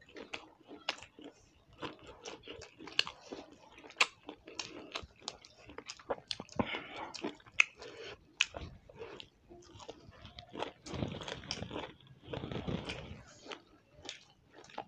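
Close-up eating sounds of people chewing pasta and roti: wet chewing and lip smacking with many short sharp clicks. Two longer noisy stretches break in, one about a third of the way in and one near the end.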